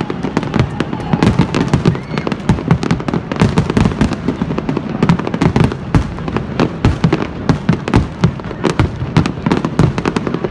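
Aerial fireworks display: shells bursting in quick succession, a dense, unbroken run of booms and crackles.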